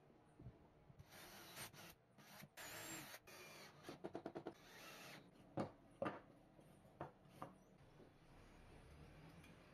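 Cordless drill/driver driving a screw into plywood, heard faintly, followed by a few sharp knocks of wood being handled.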